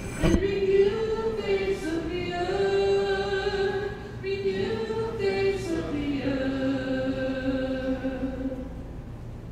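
The responsorial psalm sung unaccompanied as a single melody line in held notes, ending on a long note of about three seconds that fades near the end.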